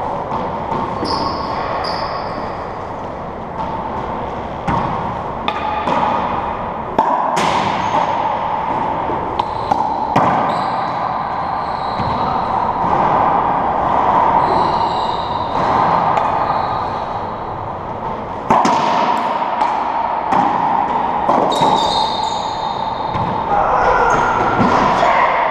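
Racquetball play in an enclosed court: scattered sharp smacks of the ball off racquets, walls and the wooden floor, over a steady background hum.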